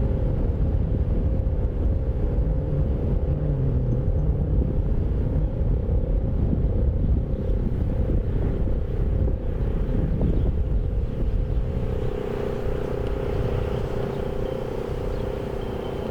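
Fedelcode Model 5 eight-port tornado siren sounding its steady full-alert tone, growing louder about twelve seconds in, over a heavy low rumble.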